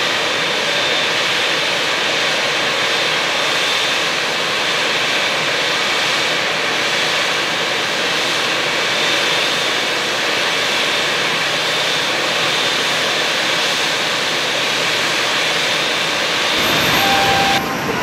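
Boeing 787's Rolls-Royce Trent 1000 turbofans at low taxi thrust, a steady jet whine with a thin high tone over it as the airliner taxis in toward the gate. The sound cuts off abruptly near the end.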